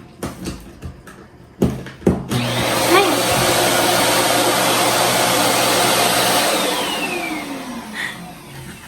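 A few clicks and knocks, then the Imarflex IV-550B bagless cyclone handheld vacuum cleaner's 690 W motor is switched on a little over two seconds in and runs with a steady whir. About four seconds later it winds down with a falling whine.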